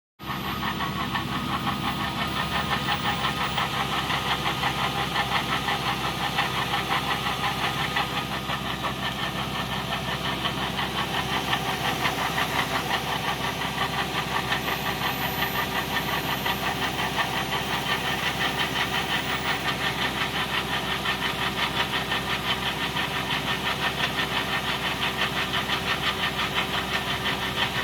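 Toyota/Lexus V8 engine idling with a rapid, even knocking from the accessory belt drive, which the uploader puts down to a worn fan pulley bracket or accessory belt idler assembly.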